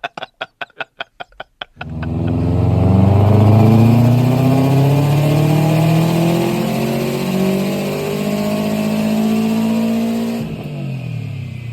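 Subaru Impreza 'blobeye' wagon's flat-four engine under hard acceleration: after a couple of seconds of quick, even pulsing, it comes in loud at full throttle and climbs in pitch, with breaks where it shifts up. Near the end it drops away as the throttle is lifted.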